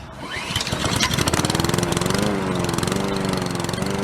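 Small gasoline lawn mower engine starting up, catching within the first second and then running steadily with a rapid, even putter.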